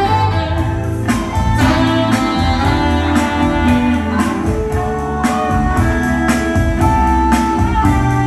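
Live jazz-rock performance: a saxophone holds melody notes over electric guitar and a bass line.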